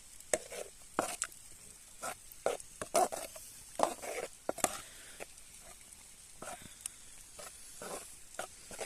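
A utensil stirring and scraping food in a cooking pan, with irregular clinks and scrapes over a faint sizzle of frying.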